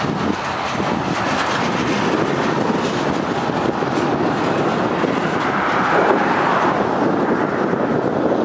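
Freight train cars, a tank car followed by lumber-loaded centerbeam flatcars, rolling past at close range: a steady rumble and rattle of steel wheels on the rails, with a few faint clicks.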